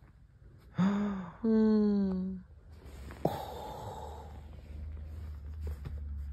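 A voice making two drawn-out low vocal sounds, a short one and then a longer one that falls slightly in pitch, followed by a click and a soft rustle.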